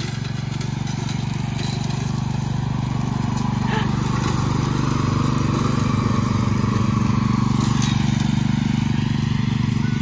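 Small rear-engine riding lawn mower running steadily as it cuts grass and leaf litter.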